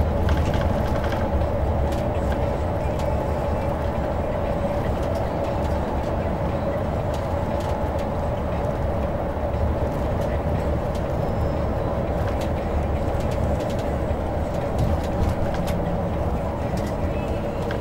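Cabin noise inside a coach bus driving at road speed: the low rumble of the engine and tyres, with a steady hum running through it.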